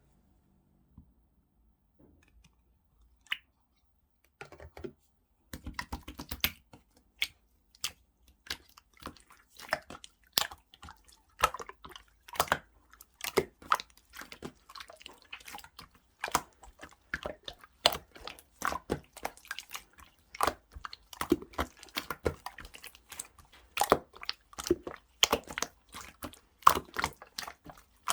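Clear slime being squeezed and kneaded by hand, giving a quick, irregular run of wet clicks and small pops that starts about four seconds in.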